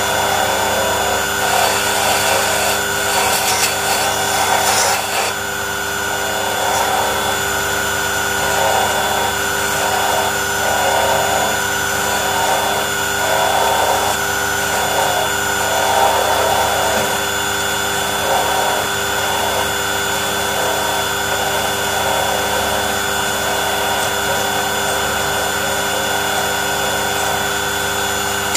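Small electric power tool running steadily while cutting a wooden part, its motor whine holding level. The cutting noise rises and falls as the wood is worked, with a harsher, hissier stretch in the first few seconds.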